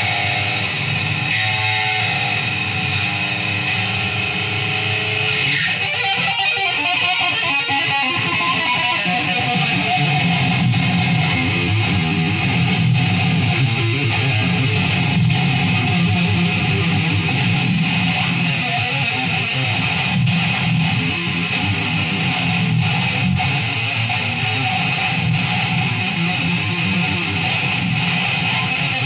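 Guitar music: a guitar being strummed, playing steadily throughout, with a change in the playing about six seconds in.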